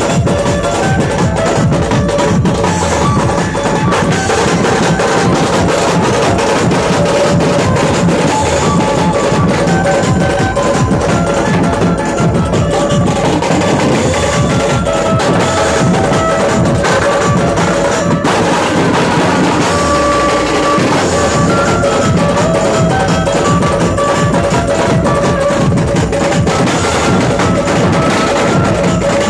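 Dhumal band playing: several large drums beaten in a fast, dense rhythm, with a melody of short held notes over them.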